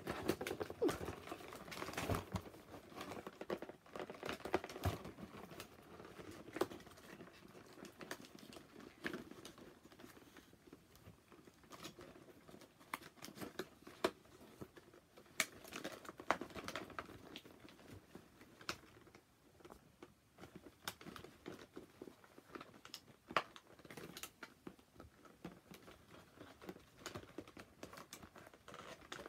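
Thin plastic packaging crinkling and rustling as toy parts are unwrapped by hand, with irregular small clicks and taps throughout.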